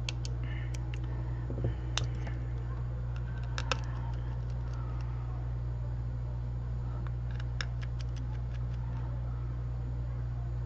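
Scattered small clicks and taps of hand tools on an iPhone 6 being worked on, over a steady low hum.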